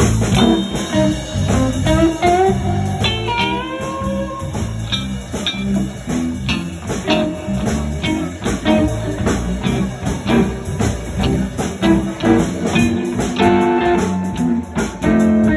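Live blues-style band music: an electric guitar plays a lead line with bent, gliding notes over a steady rhythm backing.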